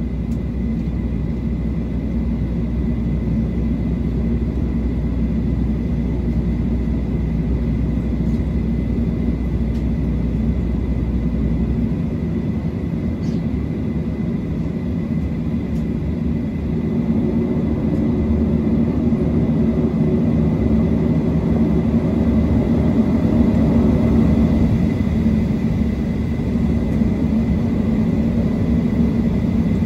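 Cabin noise of a Boeing 737-700 on the ground: a steady hum of its CFM56-7B engines and air conditioning, with a faint steady high whine. The deepest rumble drops away about 12 seconds in, and the engine noise swells somewhat past the halfway mark as the aircraft rolls forward on the taxiway.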